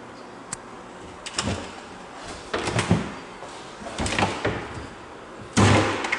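Wooden kitchen cabinet doors on concealed hinges being opened and shut: a series of separate knocks and thuds, the loudest bang near the end.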